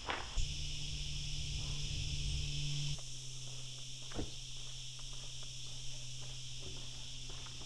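Cicadas buzzing steadily in a high, even chorus, with a low steady hum underneath that shifts pitch about three seconds in, and a few faint clicks.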